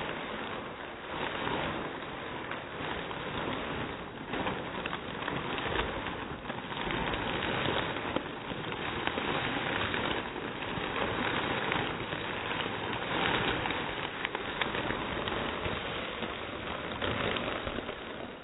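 A bag of tortilla chips being squeezed and crushed by hand: continuous crinkling of the bag and crunching of the chips breaking up inside.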